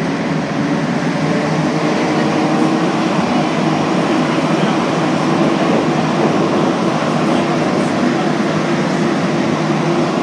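Rubber-tyred Montreal Metro Azur train running, heard from inside the car: a steady, loud rumble of the train in motion.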